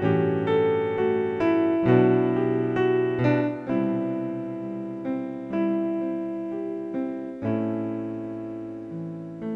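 Background keyboard music: single notes and chords that strike and fade, a new one about every half second.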